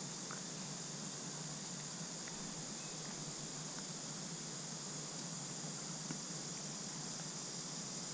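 Insects chirring in a steady high-pitched drone over a faint low hum, with a few small faint clicks.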